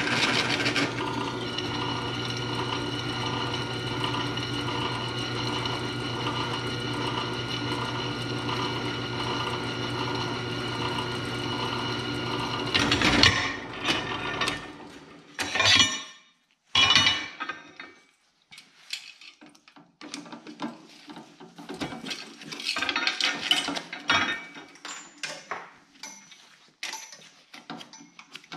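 Benchtop drill press motor running steadily while the bit drills a steel plate, with a slow regular pulse, stopping suddenly about halfway through. Then scattered clinks and scrapes as the steel plate and metal chips are handled on the drill press table.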